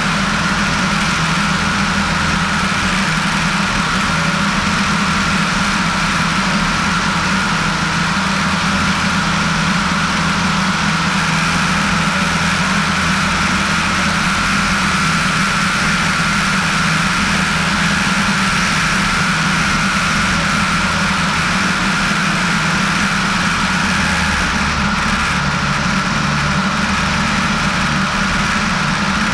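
Piper PA-18-150 Super Cub floatplane's engine and propeller droning steadily in flight. The deep low rumble grows stronger about 24 seconds in.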